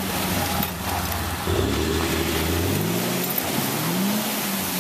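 Ford Ranger pickup's engine running and then revving up twice, rising in pitch each time, as the stuck truck tries to drive out of mud and broken ice with its tyres spinning.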